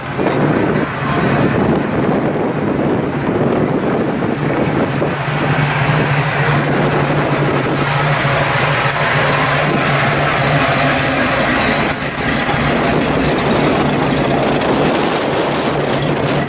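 Chevy II's engine and exhaust running with a steady low drone as the car rolls slowly past at low speed.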